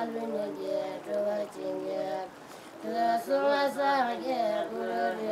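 Singing: a slow melody of long held notes that slide between pitches, with a short pause about two and a half seconds in.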